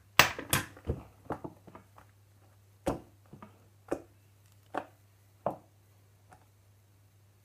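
A spoon knocking and scraping against a bowl as slime is stirred: a quick run of taps in the first two seconds, then single taps about once a second that fade out.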